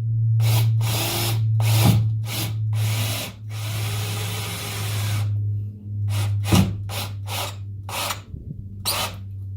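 Power drill driving 1 7/16-inch self-drilling Tek screws through a wood subfloor into steel, in a string of short bursts with one longer run of about two seconds in the middle. A steady low hum sits underneath.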